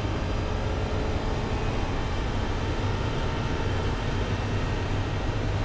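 Race car's onboard sound heard from inside the cockpit at speed on a straight: a steady low engine drone with road noise, with no gear changes or rev swings.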